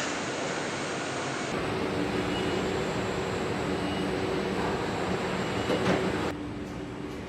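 Assembly-plant machinery noise: an even hiss with a steady hum, and a short clatter just before the sound changes abruptly near the end.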